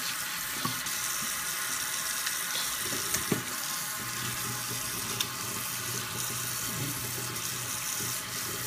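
Kitchen faucet running steadily into a stainless steel sink, the stream splashing over a fish and a plastic cutting board, with a few sharp clicks.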